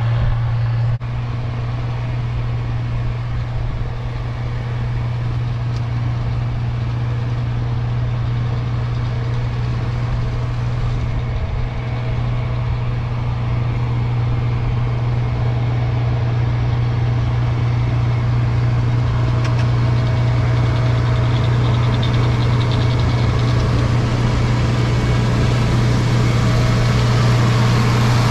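International 1256 tractor's turbocharged six-cylinder diesel running steadily under load, driving a Schweiss snow blower that is throwing snow. It is a constant low drone with a brief dip about a second in.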